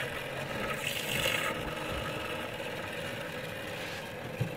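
Electric stirrer motor of a homemade sugar-dispensing and stirring machine running steadily, turning its stirrer rod in a mug of tea. A brief hiss comes about a second in and a short knock near the end.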